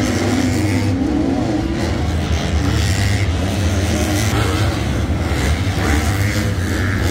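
250cc four-stroke supercross motorcycles running on the track, engines revving up and down with the throttle.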